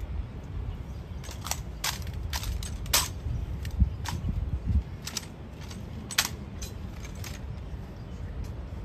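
Sharp metallic clicks and clacks from an honor guard's drill, about a dozen at irregular intervals, over a steady low rumble.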